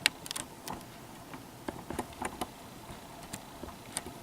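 Irregular series of small clicks and light knocks from the camera being handled and repositioned.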